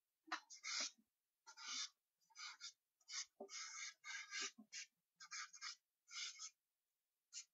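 Charcoal drawn across paper in a quick series of short, faint scratching strokes with brief pauses between them.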